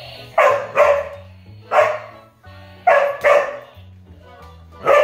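Dog barking about six times, some in quick pairs, over music.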